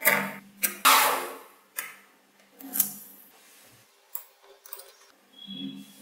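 Small magnetic balls clicking as strands of them snap together and are set down on a hard tabletop: several separate sharp clicks with pauses between, the longest pause a little past the middle.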